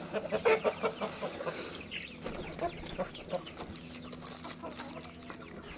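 Aseel chickens clucking. Over the first half there are short clicks and rustles from a plastic packet of whole mung beans being opened and poured into a steel bowl of millet.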